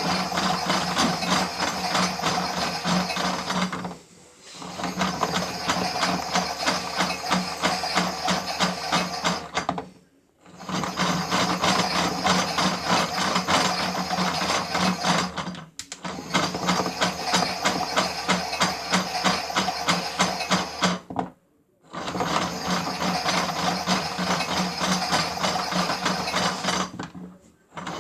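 Miele W1 toy washing machine's small electric motor whirring with a rapid clicking gear rattle as the drum turns, stopping for under a second about every five seconds and starting again, as in a wash phase.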